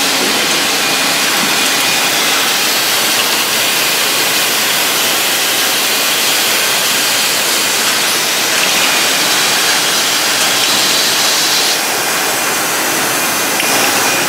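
Automatic bottling and capping line running: a loud, steady hiss with machinery noise beneath it. The high part of the hiss drops a little about twelve seconds in.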